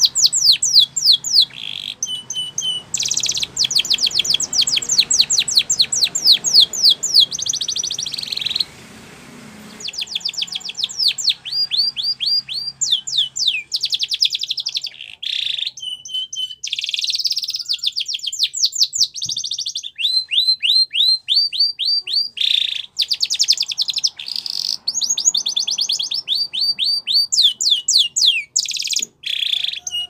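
Spanish Timbrado canary singing: long, fast trills of rapidly repeated high notes, each sliding downward, strung into phrases that change speed and pitch. The phrases are broken by short pauses, with one longer break of about a second a third of the way through.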